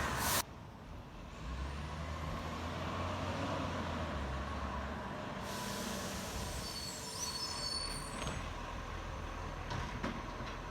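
Garbage truck's diesel engine running low, with an air hiss starting about five and a half seconds in and a brief thin squeal, typical of air brakes. A louder sound cuts off abruptly half a second in.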